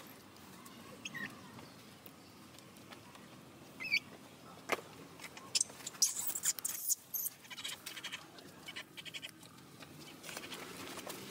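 Newborn macaque infant giving short, high, upward-sliding squeaks, twice in the first half. From the middle on there is scratchy rustling and fast pattering on dry leaves and stone, with a single knock just before it.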